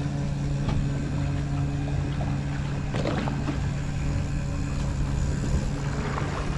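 Boat outboard motors idling with a steady low hum, with a few faint knocks in the middle of it.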